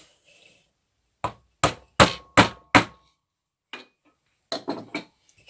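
A mallet tapping a wooden dowel into a glued hole in a wooden axe head. Five sharp knocks come in quick succession, then one quieter knock and a few softer ones.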